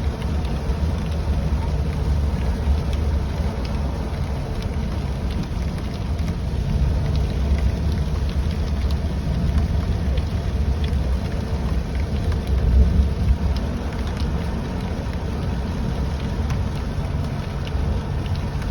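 Steady low rumble of a car driving in the rain, with faint scattered raindrop ticks.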